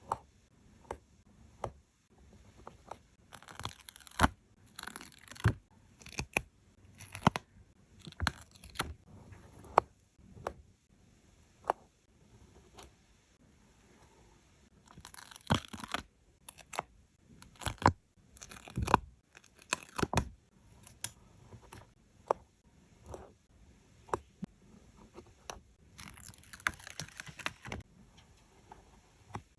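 Stickers being peeled off their backing sheet and pressed down onto paper, heard as scattered light taps and clicks with a few brief peeling rips. The longest rip comes near the end.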